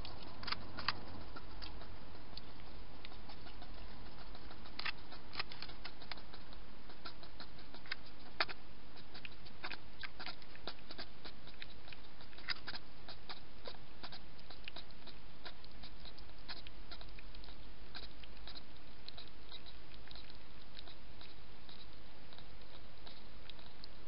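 A European hedgehog drinking from a water bowl: irregular small clicks of lapping, coming thicker around the middle, over a steady hiss.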